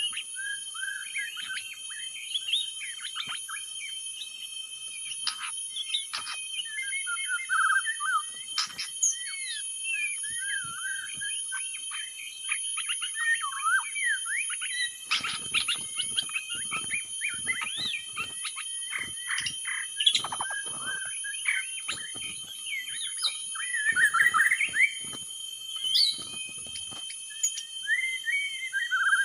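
White-rumped shama singing a long, unbroken run of varied whistles, chips and quick trills, played as a lure call. A thin, steady high tone runs underneath.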